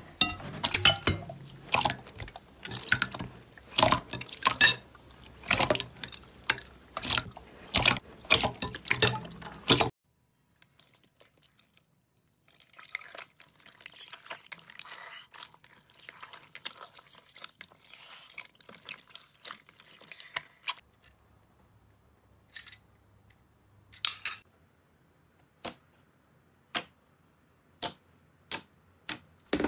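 Hands working slime: first a thick, sticky slime squished and poked by fingertips, with rapid wet clicks and squelches. After a short break, hands stir soft cubes in a basin of water, sloshing and dripping. Last, a palm presses down on a clear slime, and single sharp pops of air bubbles bursting come about once a second.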